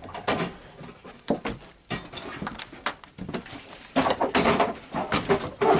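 Junk being rummaged through and shifted by hand: irregular knocks, clatters and scraping of objects being moved, busiest near the end.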